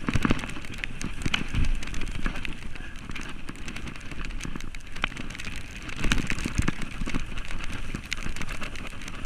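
Downhill mountain bike rolling fast down a wet grass slope: a steady hiss of tyres on wet turf and spraying mud, with a run of clicks, rattles and knocks from the bike over bumps, the loudest near the start and about six seconds in.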